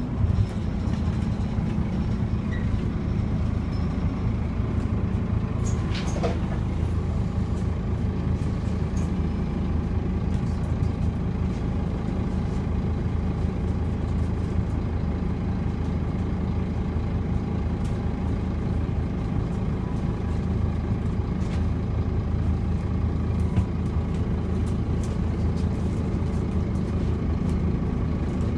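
Scania OmniCity double-decker bus's diesel engine running at a steady idle, heard from inside the passenger saloon, with a brief click about six seconds in.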